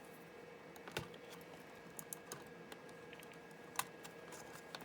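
Scattered faint clicks and taps of a laptop's plastic screen panels being handled and worked loose, the sharpest about a second in and just before four seconds, over a faint steady hum.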